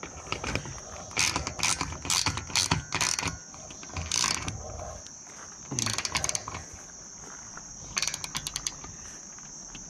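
Hand socket ratchet clicking in several quick runs with pauses between, as a nut is snugged down on a strut-channel roof rack mount. Crickets chirp steadily throughout.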